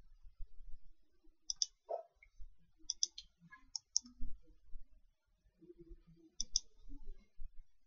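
Sharp clicks of carom billiard balls and cue striking: a quick pair about a second and a half in, a short run of clicks around three to four seconds, and another pair near the end.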